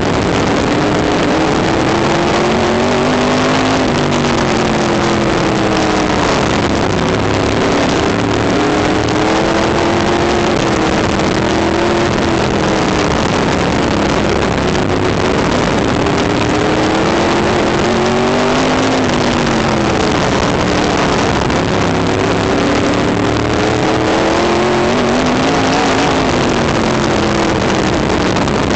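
Onboard sound of an open-wheel oval race car's engine under racing load, its pitch dropping and climbing back every few seconds as it lifts for each turn and accelerates again. Wind and engine noise on the car-mounted microphone.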